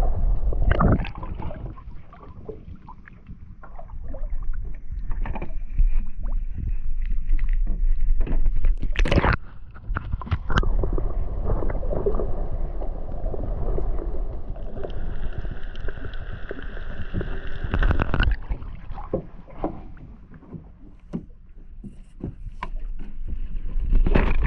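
Muffled water sloshing and gurgling around an action camera held underwater, with many small knocks and a couple of louder thumps as the housing moves in the water.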